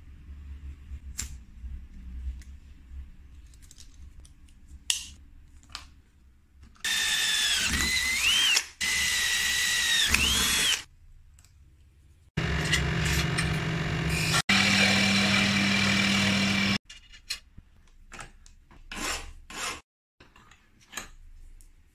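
Cordless drill boring through a thin metal strip, running in two bursts of a few seconds with a high squeal that wavers in pitch. This is followed by a second loud power-tool run of about four seconds with a steady low hum. Small handling clicks and knocks come in between.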